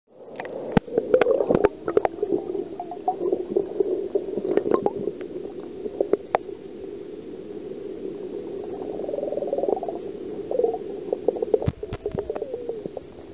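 Underwater sound picked up by a submerged camera: a muffled, steady water noise with scattered sharp clicks and knocks, several in the first two seconds and a cluster near the end.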